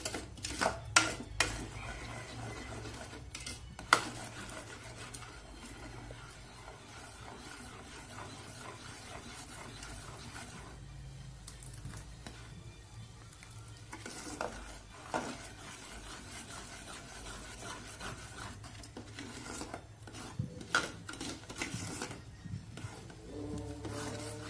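A metal spoon stirring thick vla custard sauce in an aluminium pot, scraping steadily around the pot, with occasional sharp clinks against its side, several in the first second or so and a few single ones later.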